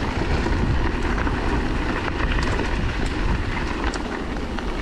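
Wind rushing over the camera microphone and the electric motorbike's tyres rolling on a dirt and gravel track, coasting at about 25 to 30 km/h with the motor drawing no power. It is a steady, rumbling noise.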